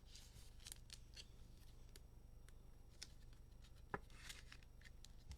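Faint handling of trading cards: light slides, rustles and small clicks, with one sharper click about four seconds in, over a low steady hum.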